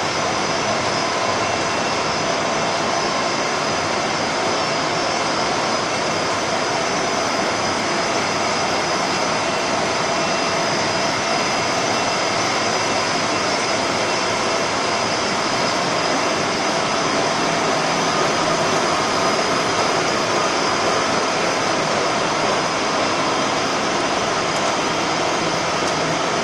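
Monofilament extrusion line for synthetic wig fibre running: a loud, steady machine hum and whine with several constant tones over a mechanical hiss.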